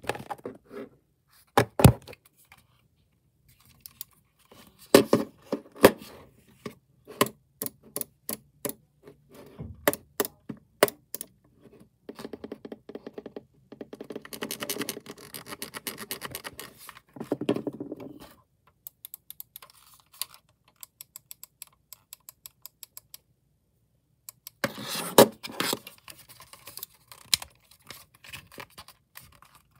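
Computer mouse being clicked and handled: runs of sharp, rapid button clicks in several bursts, mixed with knocks and rattles as the mouse is picked up and turned over.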